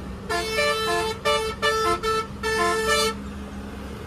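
A bus's musical horn plays a short tune of stepped notes in about five blasts over three seconds, above the steady drone of the bus engine and road noise; then only the engine and road noise remain.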